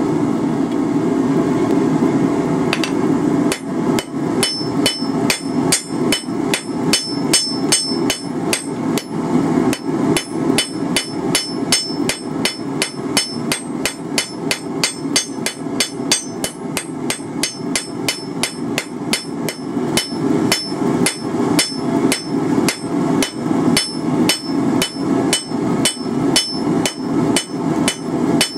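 Hammer blows on a hot rebar holdfast pad on the steel anvil, starting a few seconds in and going on at about two to three a second, each blow with a short high ring. A steady low hum runs underneath.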